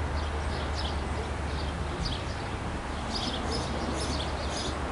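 Small birds chirping over and over above a steady low rumble from a Long Island Rail Road diesel locomotive pulling its train away.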